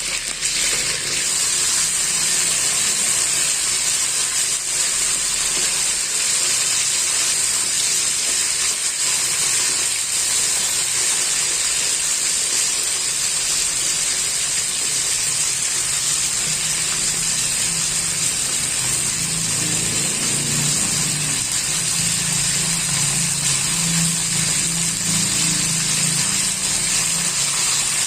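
A steady hiss, with a low hum joining about halfway through.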